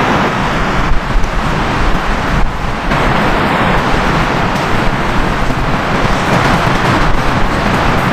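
Steady heavy rain: a dense, continuous hiss, briefly dipping about two and a half seconds in.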